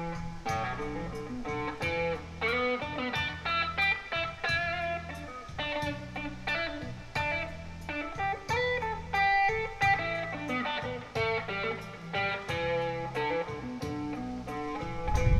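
Electric guitar playing a picked blues lead line of many single notes over a steady, repeating low bass pattern. Near the end a loud low rumble comes in.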